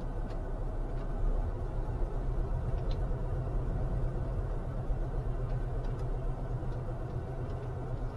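Camping car driving slowly, heard from inside the cab: a steady low rumble of engine and road noise.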